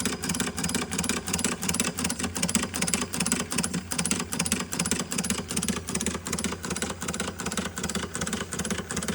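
1920s Doll 512/3 toy live-steam engine running steadily with its burner lit, its side exhaust puffing in a fast, even rhythm.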